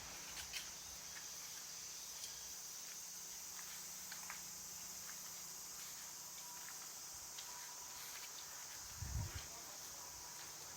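Yamaha Cygnus X's single-cylinder four-stroke engine running at idle with a steady hum and scattered light ticks, and a low knock about nine seconds in. It is the abnormal engine noise of oil starvation: water built up in the oil from short warm-ups turned it to sludge that blocked the oil line, and the camshaft was found worn.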